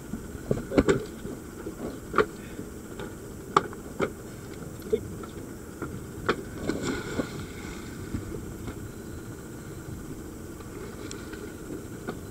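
Steady low rumble on a small dive boat, with scattered sharp knocks and clatters of scuba gear being handled, most of them in the first half and fewer later.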